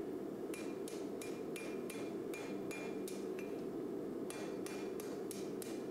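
Hand hammer striking red-hot high-carbon spring steel on an anvil, about three blows a second, each with a bright ringing note, with a pause of about a second midway. The smith is shaping the curled handle end of a knife.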